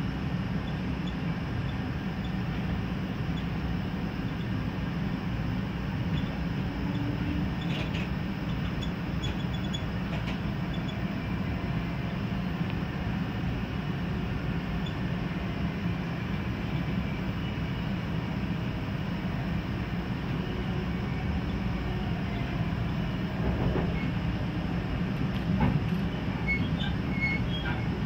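Steady low rumble of a Sounder commuter train rolling along the rails, heard from inside the bilevel coach, while a BNSF intermodal freight train passes close alongside on the next track. A few faint, brief high squeals come through about eight to ten seconds in and again near the end.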